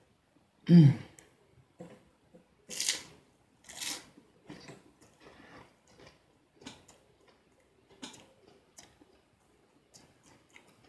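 Close-up crunching and chewing of a fried egg roll: a short hummed "mm" about a second in, two louder crunches a couple of seconds later, then a run of softer chewing clicks.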